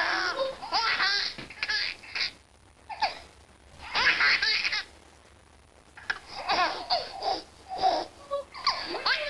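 Baby laughing in repeated short bursts of high, bouncing giggles, with pauses of about a second between them.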